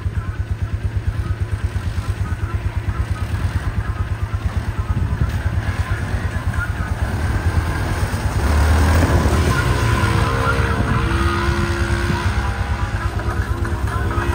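ATV and side-by-side engines running. At first a steady, fast low throb; from about halfway through, the engine sound gets louder, with its pitch rising and falling as the machines rev and pass close by.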